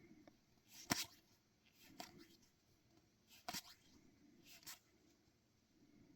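Faint handling of trading cards: a few soft, sharp snaps and slides about a second apart as the cards of an opened booster pack are flipped through one by one.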